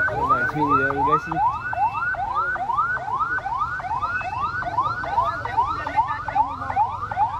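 Electronic vehicle alarm sounding a rising whoop about three times a second, repeating without a break.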